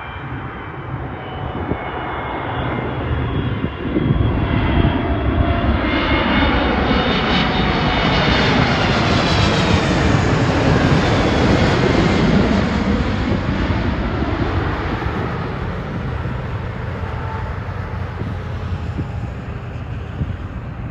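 Aircraft engines passing close by. The sound grows louder to a peak in the middle and then fades, with whining tones that fall in pitch as the aircraft goes past.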